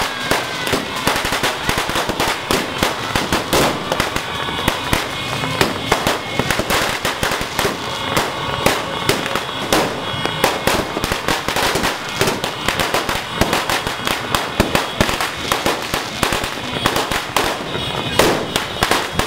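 Fireworks going off in a dense, continuous barrage of bangs and crackles, several every second.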